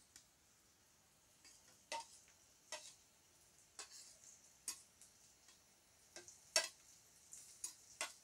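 Scattered light clicks and taps, about a dozen at uneven intervals, as a metal spatula scrapes chopped green chilli off a plate into a kadai of frying onions.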